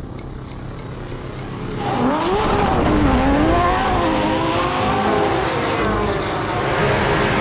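Porsche 911 race car flat-six engines revving hard, their pitch climbing and dropping through gear changes. A low steady rumble for about the first two seconds, then the loud revving comes in.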